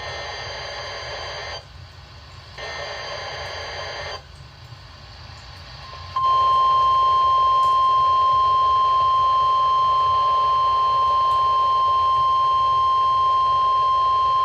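Emergency Alert System required weekly test on a NOAA Weather Radio receiver, over a hiss of static. Two SAME header data bursts sound first, each a harsh buzz of about a second and a half with a short gap between. About six seconds in, the steady 1050 Hz alert tone starts and holds, much louder than the bursts.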